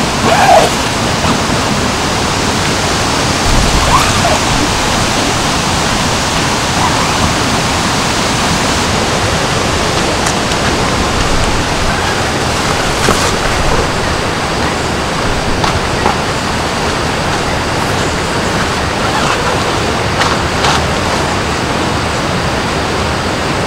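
Mountain stream rushing steadily over rocks, with a few faint taps and clicks on top.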